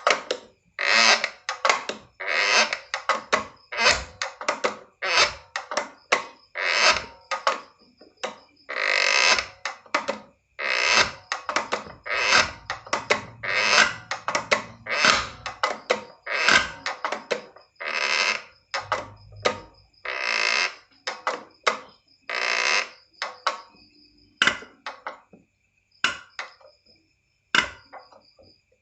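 Diesel injector nozzle being popped on a hand-pump tester, spraying fuel in a long series of short hissing bursts at an irregular pace, over a faint steady high-pitched whine. The test shows whether the nozzle atomises the diesel into a fine mist or dribbles it, a dribbling nozzle being one cause of black diesel smoke.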